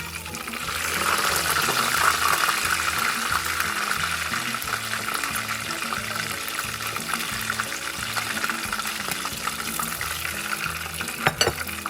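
Chicken quarter legs sizzling as they fry in hot oil on a high flame for their final crisping. The sizzle swells about a second in and holds steady, with a few sharp clicks near the end, over background music with a steady beat.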